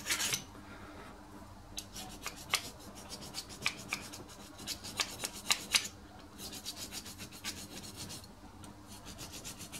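A flat hand file rasping along the edges of a small turned metal bush, in several runs of short strokes with brief pauses between them.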